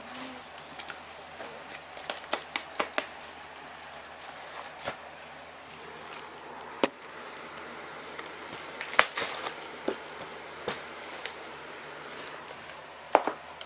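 A cardboard box and its packaging being opened and handled: irregular clicks, scrapes and crinkling, with a few sharper snaps, three of them louder than the rest.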